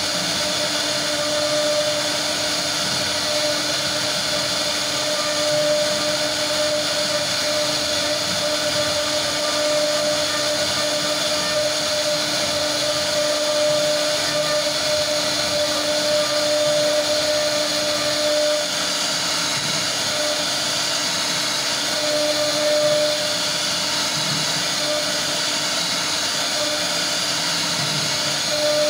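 CNC router spindle running with a fine carving bit cutting into a wooden panel: a steady high-speed whine with the hiss of the bit milling wood.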